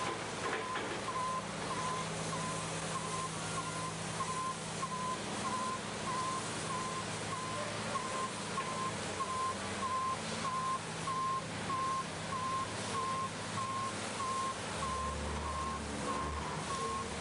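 Garbage truck's reversing alarm beeping steadily, about three beeps every two seconds, over the hiss of water spraying from the truck-wash arch and a low steady hum.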